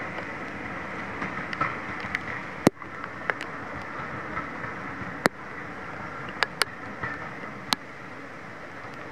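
A train rumbling away into the distance, slowly fading under a steady hiss of rain. Sharp taps of raindrops hit the camera about five times.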